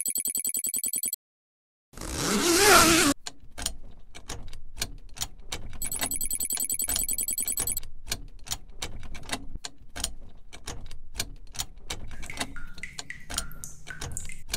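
Added mechanical sound effects: a fast-repeating bell rings for about a second, a noisy whoosh swells up, then gears click and tick at an uneven pace. The bell rings again for a couple of seconds in the middle, and short squeaks come near the end, as of stuck gears.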